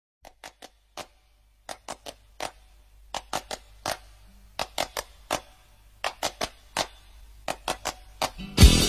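Irregular sharp clicks and taps, a few a second, from hands handling a plastic Blu-ray case and a cardboard presentation box and lifting out a card insert. Music cuts in near the end.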